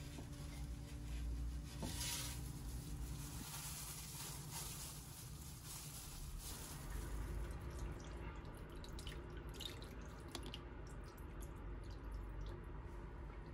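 Kitchen water sounds in an earthenware clay pot: water sloshing and dripping in the pot, then wet squelching as kimchi is pressed into it by a gloved hand. Near the end, water is poured from a glass measuring cup into the pot.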